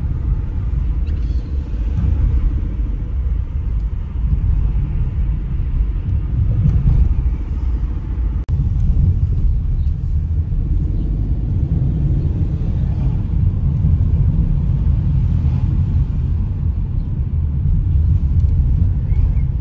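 Steady low rumble of a car driving, heard from inside the cabin: road and engine noise, with one very brief drop-out a little over eight seconds in.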